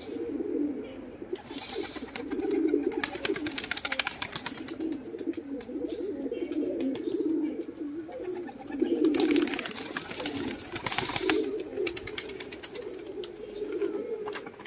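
Domestic pigeons cooing in repeated low, rolling bouts, one after another. Two spells of rapid sharp clicks come through, about two seconds in and again around nine to eleven seconds.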